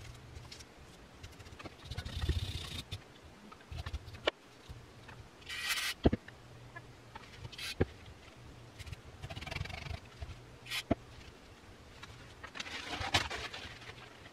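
Workbench handling of disassembled reciprocating-saw parts: a few short hissy rustles, as of wiping or brief spraying, and several sharp clicks and taps of small parts being handled and set down.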